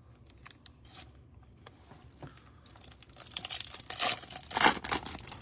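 A trading card pack's wrapper being torn and crinkled open, starting a little over three seconds in after a few faint handling clicks.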